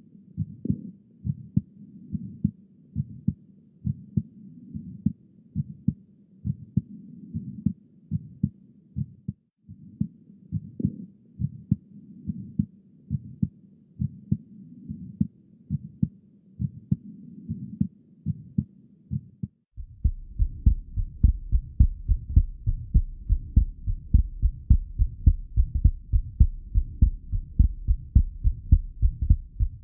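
Recorded heart sounds, beating in a steady rhythm. For about the first twenty seconds a steady rushing noise runs under the beats, typical of a heart murmur. After that a different heart recording takes over, with louder, sharper beats.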